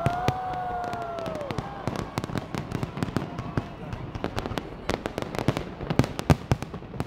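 Fireworks display: many sharp bangs and crackles from bursting shells. Over the first second and a half a long drawn-out voice rises and falls above them.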